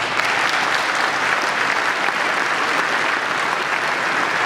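Audience applauding, a steady dense clapping that carries on without a break.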